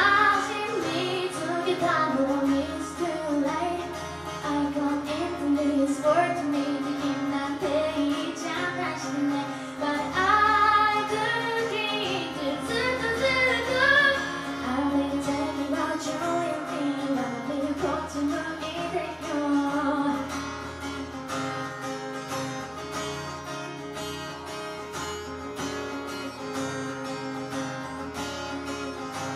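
A woman singing a pop song over her own strummed acoustic guitar. About two-thirds of the way through, the voice stops and the acoustic guitar carries on alone, a little quieter, as an instrumental break.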